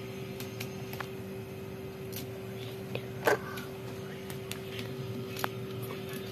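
Scattered light clicks and taps of screwdrivers and blender motor parts being handled, with one louder clink about three seconds in, over a steady hum.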